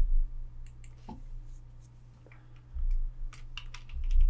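Scattered clicks of a computer mouse and keyboard, with a few low thumps and a steady low hum underneath.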